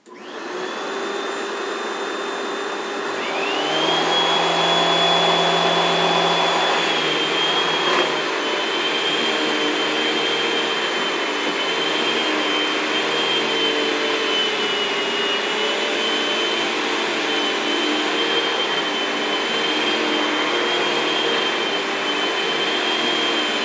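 A 6-gallon, 2.25-horsepower wet/dry shop vacuum switched on, starting abruptly and running with a steady high whine. About three seconds in, the motor of a 12-inch Kenmore power head spins up with a rising whine and the sound gets louder, and the vacuum then runs over a carpet rug.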